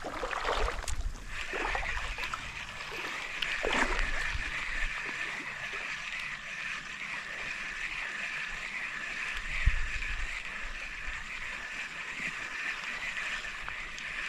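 Fishing reel being wound through a retrieve: a steady whir with a slight regular waver, starting about a second in and running on. Faint water lapping underneath, and one low knock about ten seconds in.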